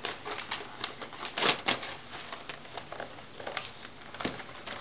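A dog tearing and crinkling the wrapping paper on a present: irregular sharp crackles and rips, loudest about a second and a half in.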